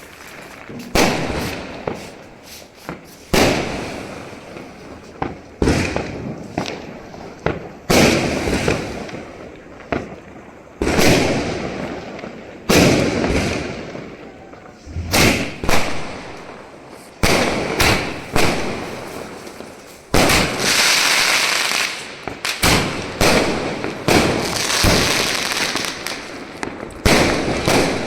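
A 30-shot firework cake firing its shots one after another, each a sudden bang with a fading crackle, roughly every one to two seconds. About two-thirds of the way through, one shot gives a longer stretch of crackling.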